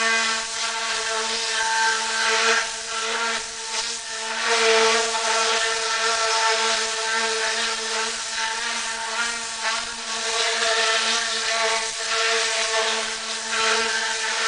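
Tornador Black Z020 compressed-air cleaning gun running: a steady buzzing hiss of air whipping through its pulsing nozzle tube, holding one pitch with only small swells in level.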